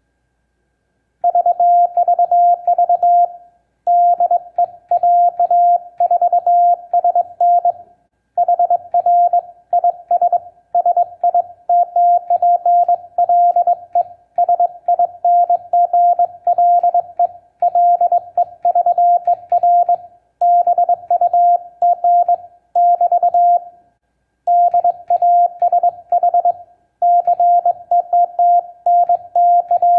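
Morse code sent on a homebrew semi-automatic bug key, with mechanical dashes and reed-switch dots. It sounds as a steady sidetone beep keyed on and off in rapid dots and dashes, in groups of a few seconds with short pauses between them, starting about a second in. Faint clicks go along with the keying.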